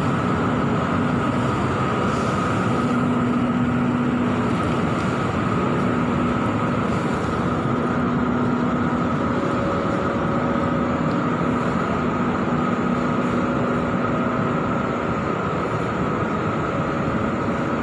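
Steady rushing background noise with a faint low hum and a higher steady tone, unchanging throughout.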